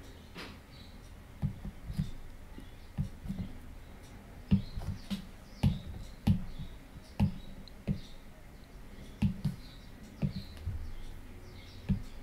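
Stylus tapping and stroking on a tablet's glass screen during digital drawing: short, irregular taps, one or two a second.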